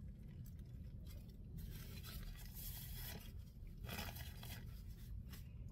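Paper rustling and rubbing in several short bursts: a paper napkin and a burger's paper wrapper being handled, with the napkin wiped across the mouth about four seconds in. A faint steady low rumble runs underneath.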